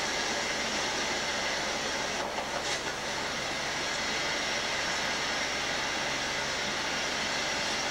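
Recording of stormy weather played loudly through a speaker: a steady, even rushing hiss.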